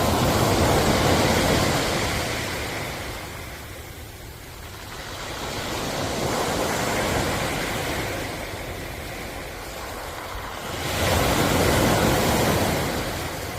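Ocean surf, waves breaking and washing in. The rushing noise swells and fades three times: loud at the start, again around the middle, and rising suddenly near the end.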